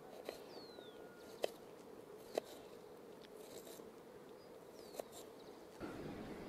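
A small knife slicing an onion on a wooden chopping board: four sharp taps of the blade hitting the board, spaced about a second apart, over a steady insect hum with a couple of faint bird chirps. The background grows louder near the end.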